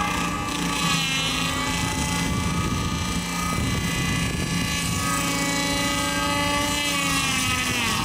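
ASV RT-120 compact track loader's diesel engine and hydraulic rotating tree saw running steadily while cutting at the base of a tree, the pitch sagging near the end as the machine takes the load.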